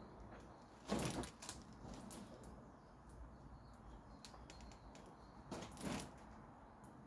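Shoes scuffing on paving slabs: two brief scuffs, about a second in and again around six seconds, with a few faint ticks between them over a quiet background.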